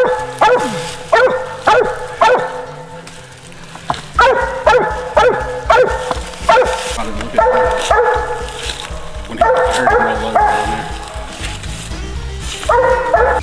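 Squirrel dog barking treed: short chopping barks at about two a second, in runs with brief pauses, the sign that it has a squirrel up the tree. Background music plays underneath.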